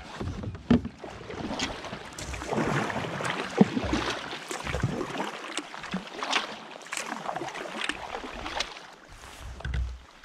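Kayak paddle blades dipping and splashing in the water, about one stroke a second at an uneven pace, with low wind rumble on the microphone now and then.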